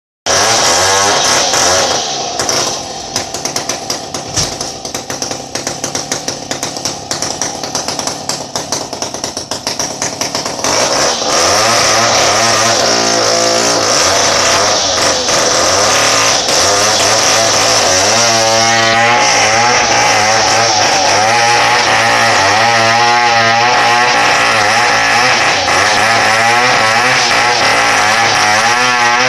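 Two-stroke chainsaw running: lower and uneven for the first ten seconds or so, then opened up to full throttle about eleven seconds in, its pitch wavering up and down as it runs hard.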